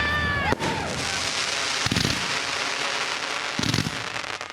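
Fireworks finale: dense, continuous crackling from many shells bursting at once, with deeper booms about two seconds in and again near the end.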